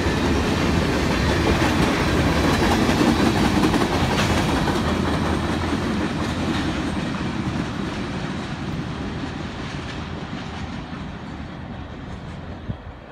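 Covered hopper cars of a CSX freight grain train rolling past on the rails, with a steady rumble of wheels on track. The rumble fades steadily from about four seconds in as the end of the train moves away.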